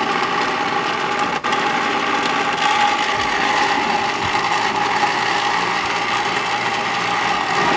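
Countertop blender motor running steadily at one pitch, puréeing cooked beans with chopped onion into a smooth paste.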